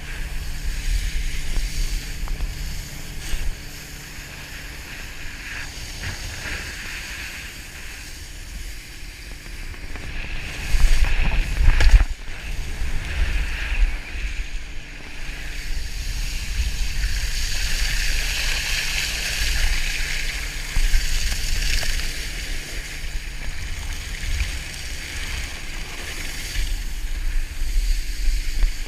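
Wakeboarding heard on a GoPro: wind buffeting the microphone with a steady low rumble, and the hiss of water spraying off the board as it carves through the boat's wake. The hiss swells and fades as the rider crosses the wake, with a loud sudden burst about eleven seconds in.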